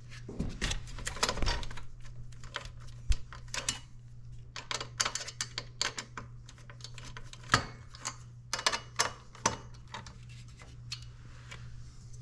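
Irregular small clicks and light clattering as a CPU cooler's screws and plastic fan are worked loose by hand, with a steady low hum underneath.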